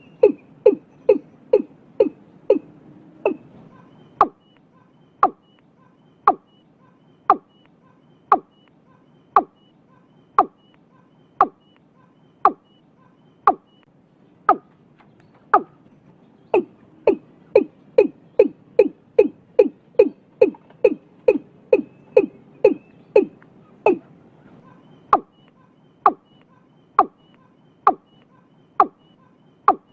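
Watercock (cúm núm) calling: a long series of short low notes, about three a second at the start, slowing to about one a second from about four seconds in, quickening again to about three a second at around sixteen seconds, and slowing once more near twenty-four seconds.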